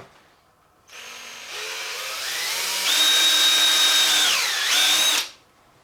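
Electric drill speeding up in steps, running steady at high speed, dipping in pitch for a moment as it bites, then stopping abruptly: drilling a hole through the end of a rubber handlebar grip.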